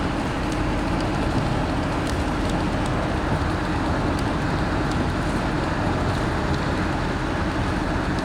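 Steady running noise of a moving vehicle, a dense even rumble and hiss with a constant low hum and faint scattered ticks.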